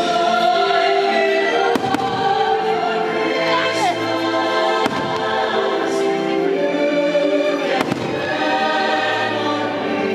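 A choir singing over music, with fireworks shells bursting in sharp bangs about two, five and eight seconds in.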